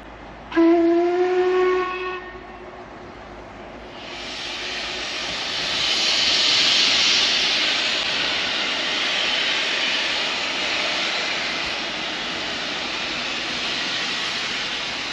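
The Jacobite steam locomotive's whistle blows once for about a second and a half. Then a loud steady hiss of steam builds up over a couple of seconds and carries on.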